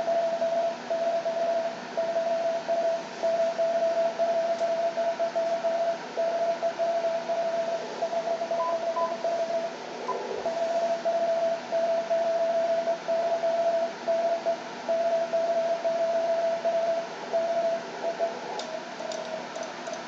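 Morse code (CW) from a shortwave amateur radio transceiver on the 17-metre band: one steady tone keyed on and off in dots and dashes over a constant hiss of band noise, part of a two-way CW contact. A soft bump is heard about halfway through.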